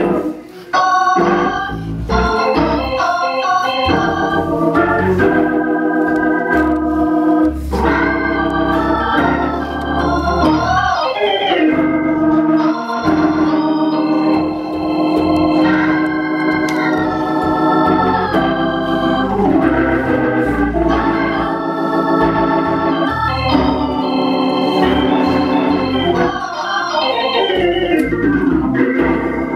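Instrumental organ music with held chords over a moving bass line and no singing.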